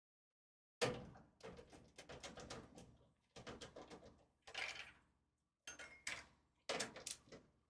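Clicks, taps and light metallic rattles of parts being handled inside a PC case as a wireless expansion card is worked at its slot. They start about a second in and come in uneven clusters of sharp knocks with short pauses between.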